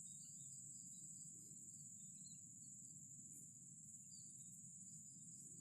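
Faint, steady high-pitched trilling of insects such as crickets, over a low rumble, with a few faint bird chirps.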